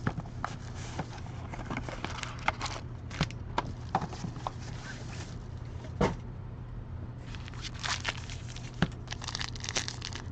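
Trading-card packaging being handled and torn open: plastic or foil wrapper crinkling and tearing, with scattered clicks and taps, over a steady low hum.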